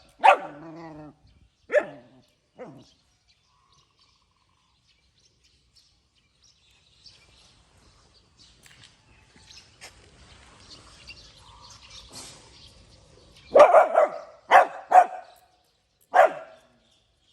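Puppy barking in short, sharp barks: three near the start, then a pause, then four in quick succession near the end.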